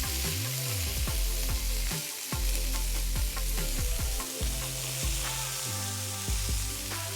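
Bison burger patties frying and sizzling on a hot flat-top griddle in butter and Worcestershire sauce, a steady hiss, with background music underneath.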